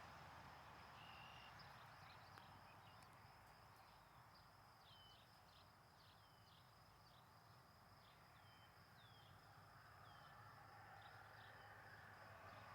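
Faint ambience: short bird chirps repeated every second or so over a steady high-pitched insect drone and a low hiss.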